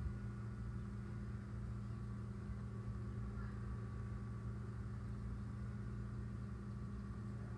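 A steady low motor hum, unchanging in pitch and level, like an engine or machine running at a constant speed.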